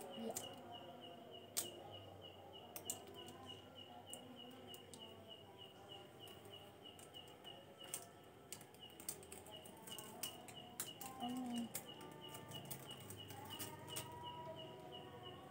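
Faint, steady high-pitched chirping, repeating evenly about three times a second, with a few light clicks.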